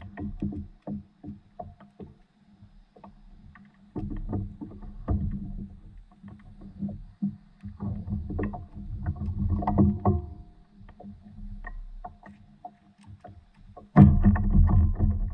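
Irregular knocks and bumps on a fishing paddleboard's deck and seat as a fish is landed and handled, with water sloshing against the board. The knocking grows much louder about fourteen seconds in.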